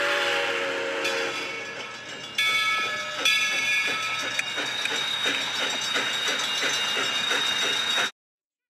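Steam locomotive hissing steam and blowing its whistle, a chord of several steady tones that comes in sharply about two and a half seconds in, over a regular beat of about two strokes a second. The sound cuts off suddenly near the end.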